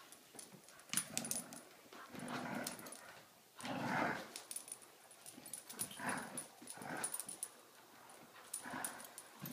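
Two dogs play-growling in short rough bursts as they tug against each other over a stuffed toy, the strongest growl about four seconds in, with scattered light clicks among them.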